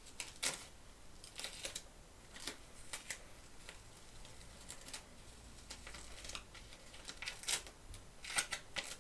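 Sticky carpet tape and book pages being handled: irregular crackles and clicks as the tape is pulled, cut and pressed down, with a cluster of sharper ones near the end.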